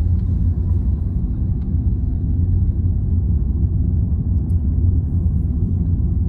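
Steady low rumble of a car driving along the road.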